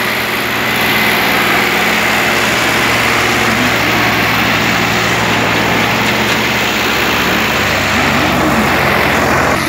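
Engines of an Eicher 368 tractor, with its air-cooled three-cylinder diesel, and a Mahindra Arjun 555 tractor running steadily under load as they pull against each other on a taut chain in a tug of war. The engine note shifts about seven and a half seconds in.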